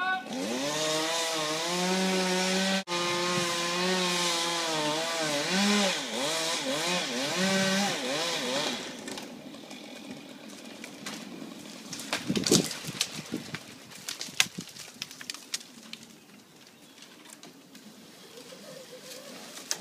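Stihl chainsaw revving and cutting into sweet chestnut wood, its pitch rising and falling with the throttle for about nine seconds. The saw then drops away, and a few sharp cracks and knocks follow about two-thirds of the way through.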